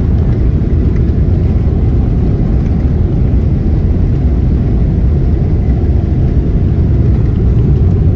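Steady, loud low rumble of an airliner's cabin noise, heavy in the bass and unchanging.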